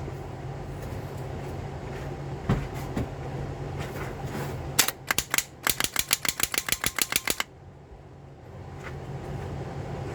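Starter solenoid on a 2002 Toyota Solara chattering when jumped: a run of rapid clicking, about eight clicks a second for roughly two and a half seconds, while the starter fails to engage and turn the engine over. A couple of single knocks come before it, over a steady low hum.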